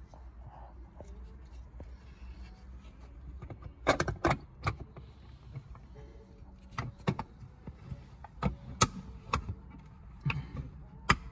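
Hard plastic trim cover clicking and knocking as it is handled and lined up over the windshield sensor area. A quiet stretch of a few seconds comes first, then a run of sharp, irregular clicks from about four seconds in.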